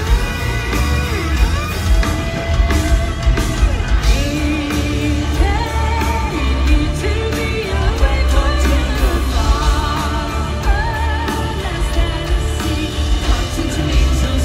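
Live rock band playing loud, with a woman singing long held, wavering notes over drums, bass and keyboards, heard from the audience.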